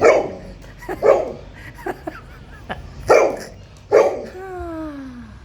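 A dog barking about four times, roughly a second apart, the last bark trailing into a long whine that falls in pitch.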